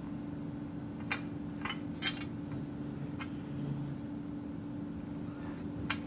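About five light clicks and clinks as a sword blade and its 3D-printed plastic fittings are handled and shifted, over a steady low hum.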